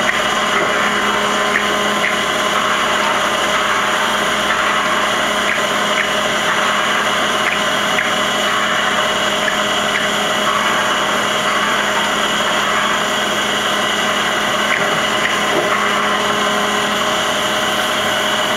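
Traub TNS-26-DGY CNC turning center running a machining cycle: a steady hum and whine from its spindles and drives over a hiss of coolant, with light ticks now and then.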